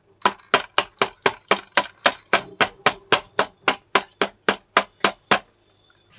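A hand tapping repeatedly on the bottom of an upturned stainless-steel lunch box, about twenty sharp metallic knocks at roughly four a second for about five seconds. The tapping loosens a set milk cake so that it drops out of the tin.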